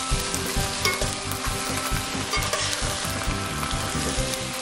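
Vegetables and sauce sizzling in a hot wok as they are stirred and tossed with a spatula, with many short strokes of the spatula through the food and against the pan.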